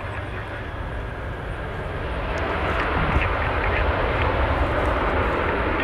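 Jet airliner engines passing by the runway, a steady rushing roar that grows louder about two seconds in and then holds.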